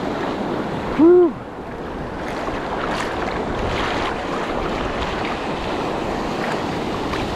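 Steady surf washing up the beach, with wind noise on the microphone; a short shouted 'woo' about a second in.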